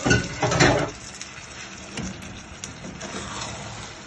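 A wooden spatula scraping and stirring through rice and sauce in a metal paella pan during the first second. After that the pan simmers on the heat, a steady low sizzle with scattered small pops.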